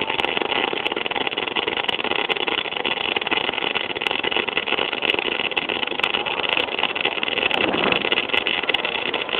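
MIG welding arc burning steadily: a continuous dense buzz with scattered sharp clicks.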